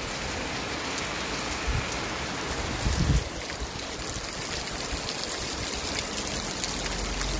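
Heavy rain falling on a wet, puddled street, a steady even hiss. A couple of short low thumps come about two and three seconds in.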